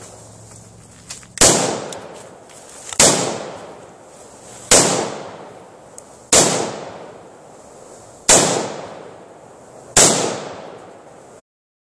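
Six single gunshots, one every second and a half to two seconds, each sharp crack trailing off in an echo.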